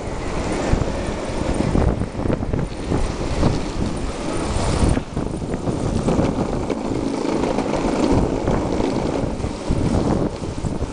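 Longboard and inline-skate wheels rolling over asphalt, a steady rumble, with wind buffeting the microphone.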